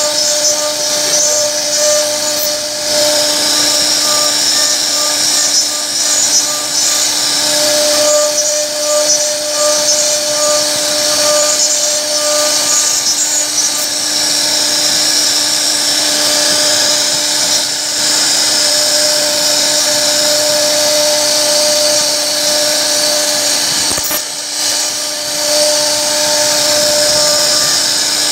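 A CNC router spindle is running at high speed while its bit carves a wooden door panel. It makes a steady whine over the hiss of cutting, and one of its tones comes and goes as the bit moves through the wood.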